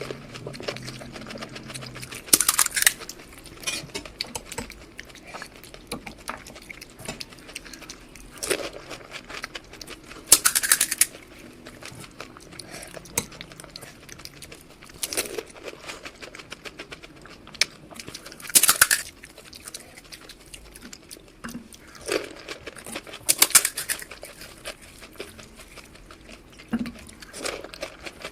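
Close-miked eating of junk food: a crisp bite or crunch every few seconds, about seven in all, with smaller chewing and crinkling clicks in between.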